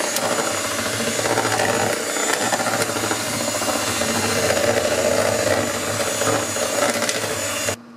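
Electric hand mixer running steadily, its beaters whirring through cake batter in a bowl; the motor cuts off abruptly just before the end.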